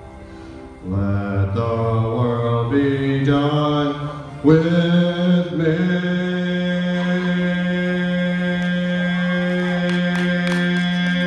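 A man singing solo into a microphone: a few sung syllables that move up and down in pitch, then, about four and a half seconds in, one long held note that carries on unbroken to the end.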